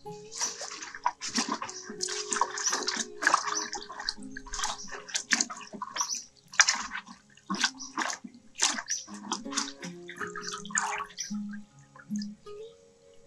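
Water splashing and sloshing in a metal basin as hands scrub a bunch of leafy greens, in quick irregular splashes. Near the end the greens are lifted out and water drips back into the basin.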